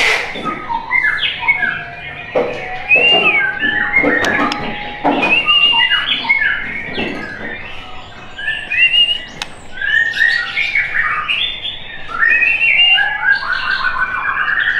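White-rumped shama singing a long, varied song of loud clear whistles, chirps and harsh rasping notes, ending in a fast trill of repeated notes.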